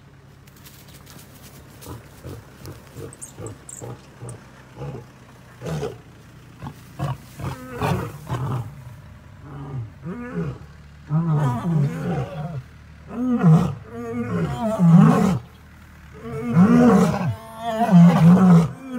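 Lions roaring: a run of short deep grunts that grow steadily louder, building from about halfway through into long, loud full roars.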